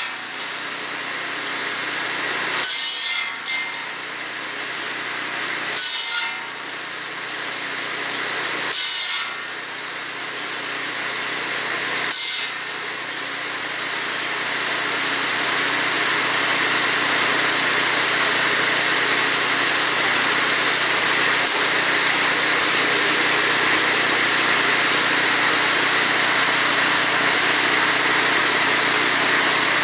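Cordwood buzz saw's 30-inch circular blade, belt-driven by an 8 hp Tecumseh engine, cutting slab wood. Four short, loud rips through the wood come about every three seconds in the first dozen seconds. After that the blade and engine run on steadily without cutting.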